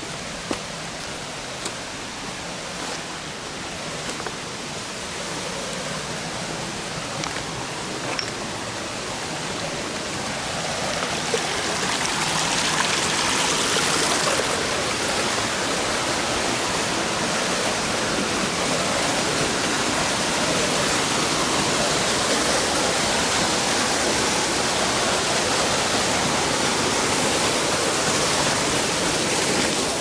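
Steady rush of a waterfall and its stream, growing louder over the first dozen seconds and then holding steady.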